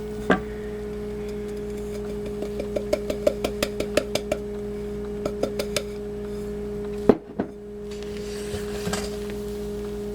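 Spatula clicking lightly against a mixing bowl while flour is folded into meringue: a run of quick clicks about three a second in the middle, then two sharper knocks a few seconds later. A steady low hum runs underneath throughout.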